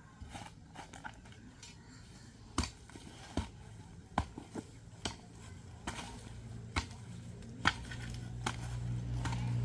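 Irregular sharp clicks and knocks, roughly one a second, over a low hum that grows louder in the second half.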